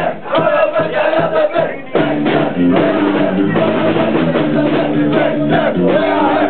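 Live punk band playing loud through a club PA: drum hits over a held guitar tone, then the full band comes in with distorted guitar chords about two seconds in.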